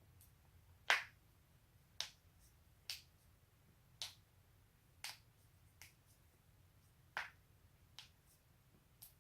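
A person's own joints cracking: a run of about nine sharp pops, roughly one a second, the first the loudest.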